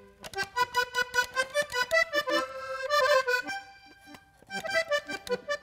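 Accordion playing a solo vallenato introduction in quick runs of notes, easing off briefly around four seconds in before picking up again.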